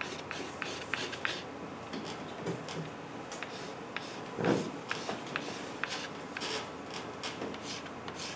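A pastel stick scratching across drawing paper in quick, short hatching strokes, several a second, with one louder scuff about halfway through.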